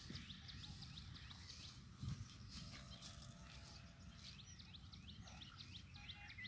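Faint chirping of small birds, many short quick notes a second, over a low outdoor rumble, with one soft thump about two seconds in.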